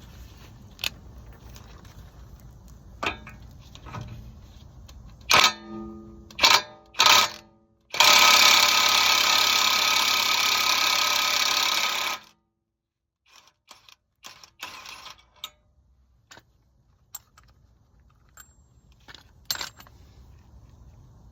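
Metal tools and a socket clinking and ringing several times, then a power impact wrench running for about four seconds on the 32 mm front axle nut of a Honda Civic, cutting off suddenly, followed by a few faint knocks.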